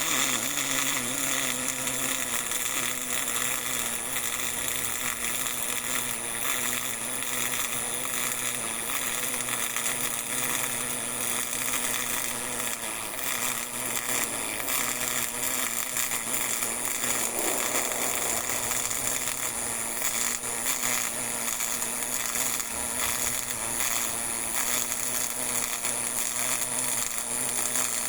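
MIG (GMAW) welding arc burning steadily, a continuous buzzing crackle as the wire feeds into the weld pool.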